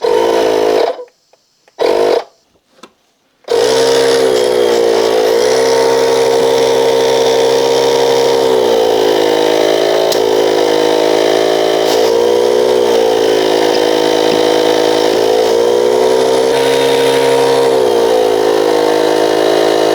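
Small portable air compressor (a Skil mini inflator) running, blowing air into a brake caliper to force out a stuck piston. It comes on in two short bursts, then runs steadily from about three and a half seconds in, its motor note dipping in pitch every few seconds.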